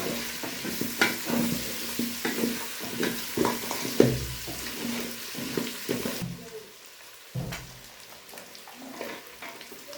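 Onions frying with cooked beef in a pot, sizzling while being stirred, a spoon repeatedly knocking and scraping the pot. The sizzle drops away suddenly about six seconds in, leaving a few scattered knocks.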